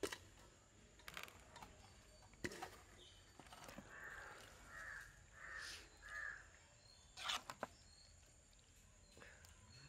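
A crow cawing faintly four times in quick succession, with a few sharp clicks before and after, the loudest about seven seconds in.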